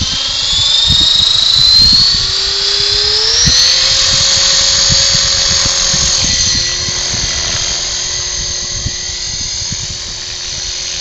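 Gootch 45SE V2 radio-control helicopter spooling up: a high whine rises in pitch over the first three or four seconds, then holds steady. Wind buffets the microphone throughout.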